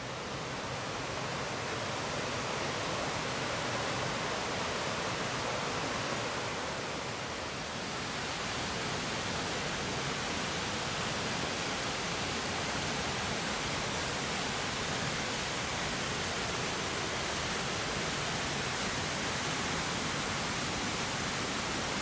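Steady rushing of water falling down the Hérisson river's cascades and waterfall, easing slightly about seven seconds in and then continuing a little louder.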